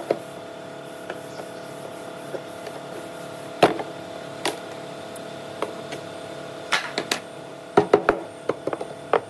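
Hammer striking a steel chisel driven under a glued panel on a wooden speaker cabinet: scattered single blows, then a quick run of strikes near the end, over a steady background hum.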